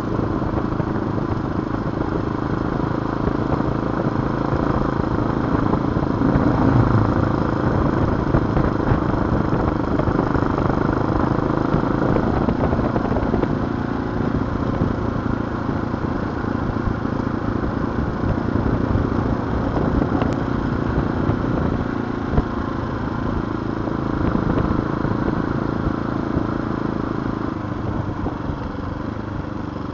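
TaoTao TBR7 dirt bike's engine running while riding on the road, with wind rush on the microphone. The engine note rises and falls with the throttle, and there is one brief sharp knock a little past the middle.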